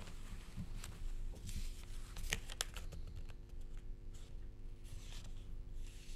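Newspaper pages rustling and crackling as they are handled and laid flat on a desk, in a run of short irregular crinkles, with a faint steady hum underneath.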